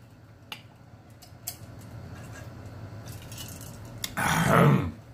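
A man drinking from a glass, with faint swallowing and a few small clicks, then a loud, strained "ahh" about four seconds in.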